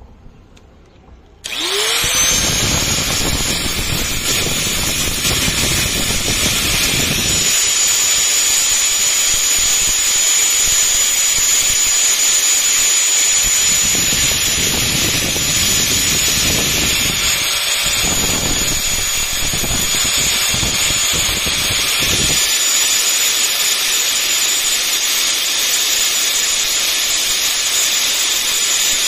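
Angle grinder switched on about a second and a half in, spinning up to a steady high whine. Its abrasive disc grinds the steel jaw of a pair of wire cutters in several spells of a few seconds each, shaping the jaw down to a point.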